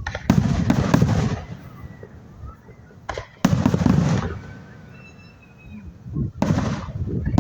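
Aerial fireworks bursting overhead: three loud spells of booming and crackling, each about a second long, near the start, about halfway through and near the end, with a short pop just before the middle one and faint high whistles between the bursts.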